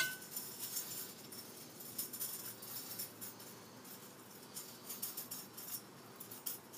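Loose steel bicycle spokes clinking and rattling against each other and the hub motor's flanges as they are handled. A sharp metallic clink with a brief ring comes right at the start, then light scattered ticks.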